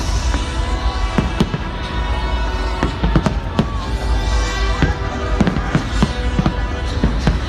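A fireworks display: shells bursting in a rapid series of sharp bangs, about two or three a second, with music playing alongside.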